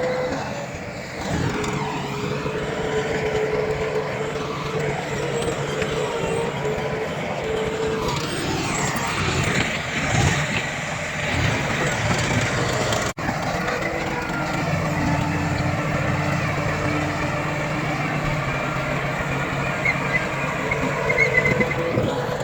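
Diesel engines of heavy earthmoving machinery (bulldozer and dump trucks) running steadily, with a momentary break in the sound about thirteen seconds in.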